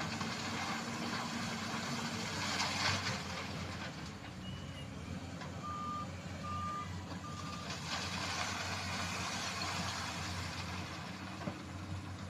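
Heavy equipment engine running steadily, with a backup alarm beeping three times about halfway through. Two louder stretches of rushing noise rise over the engine, a couple of seconds in and again near the end.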